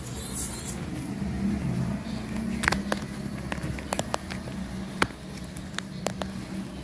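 Lenovo IdeaPad 320 laptop being handled to be opened: a scatter of sharp clicks and knocks, about eight of them in the second half, over a steady low hum.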